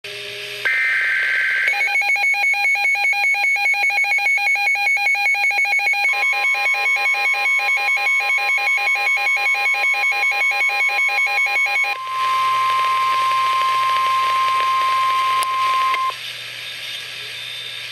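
Weather radio sounding a warning alert: a brief burst of high data tones, then about ten seconds of rapid pulsing alarm beeps. The steady 1050 Hz warning alarm tone joins under the beeps partway and then sounds alone for about four seconds before giving way to hiss.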